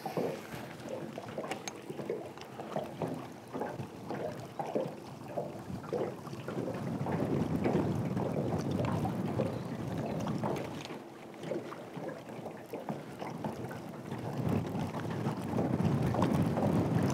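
Wind gusting over the microphone, with water lapping and slapping against the hull of a fishing boat; the wind swells louder twice.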